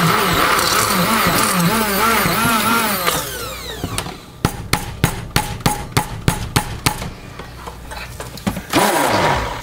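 Electric immersion stick blender running in a small plastic pitcher of soap batter, its motor whine wavering as it is moved, then spinning down after about three seconds. Then a quick run of about ten sharp taps, the blender head knocked against the pitcher's rim to shed batter, and a brief burst of noise near the end.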